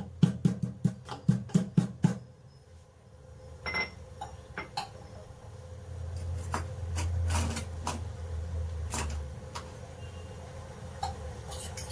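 Spices being pounded by hand, about five quick, even strikes a second, stopping about two seconds in; after that only scattered light taps and scrapes as the paste is worked.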